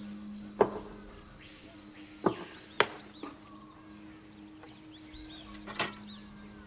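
Outdoor ambience of insects with a steady high whine and short bird chirps, broken by about four sharp knocks of tools on a wooden workbench.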